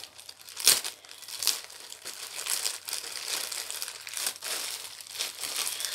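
Shiny gift wrap crinkling and rustling as a parcel is cut and pulled open with scissors, with a few sharper crackles, the loudest about a second in.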